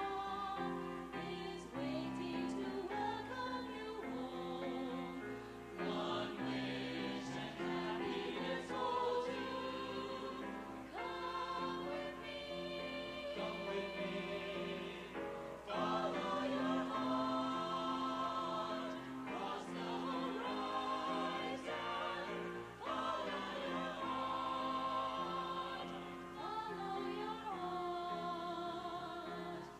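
A choir singing in harmony, with many notes held for a second or more.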